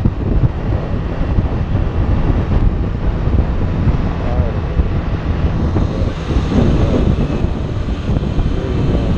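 Wind rushing over the microphone of a moving motorcycle, with the bike's engine running underneath.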